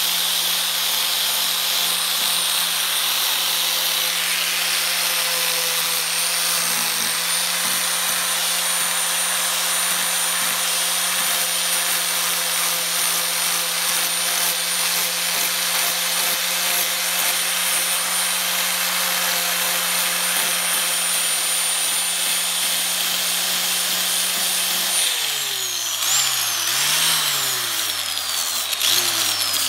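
Angle grinder with a sanding disc grinding down a cured fibreglass repair, the motor running at a steady high speed with a high whine over the grinding noise. Near the end its pitch repeatedly sags and picks back up.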